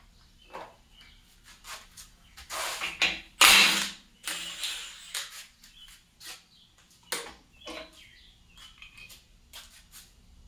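Knocks and clatter of tools and metal engine parts being handled. A louder noisy rasp lasting about a second and a half comes about three seconds in.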